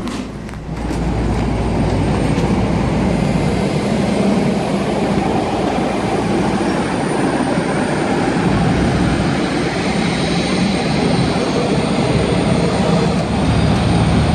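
Steady loud rumble and hiss of aircraft turbine noise on an airport apron, beside a parked Boeing 737. It jumps up in level about a second in, after a few rustling knocks of the phone against a jacket.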